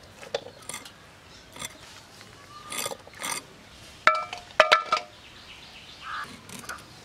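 Aluminium cooking bowl clinking, with two loud strikes about four seconds in that ring briefly. Before them come softer clicks and crunches as dried fish is cut on a boti blade.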